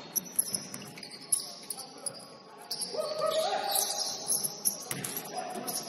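Basketball game sounds: sneakers squeaking on a gym floor, with a run of squeaks from about three to five seconds in, and a few sharp knocks of a basketball bouncing in the first second or so.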